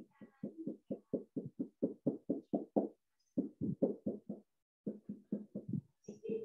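Whiteboard marker scratching out quick hatching strokes, about five or six a second, with two short pauses. The strokes shade a drawing in curved lines.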